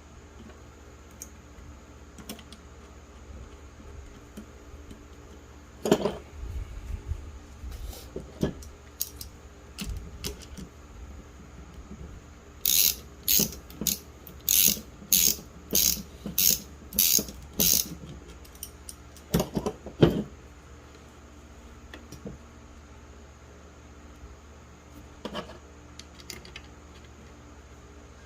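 Metal clicks and clacks from an automatic transmission floor shifter assembly being worked by hand. A few scattered knocks come first, then a run of about eight sharp clicks, roughly one and a half a second, midway, and two heavier knocks just after.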